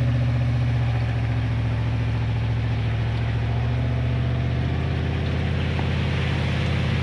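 Tow vehicle's engine running at steady, low revs while pulling the boat trailer up the ramp.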